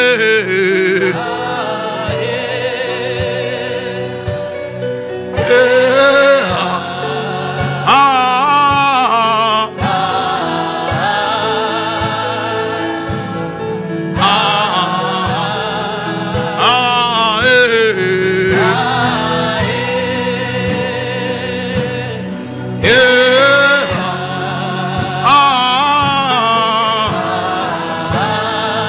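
Gospel music: a sung, wavering vocal line over a sustained backing with a soft steady beat.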